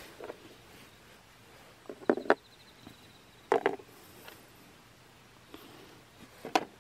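Steel wire rope and small metal snare fittings being handled on a board: a few short clinks and rattles, the loudest a pair about two seconds in and a cluster about a second later, with one more near the end.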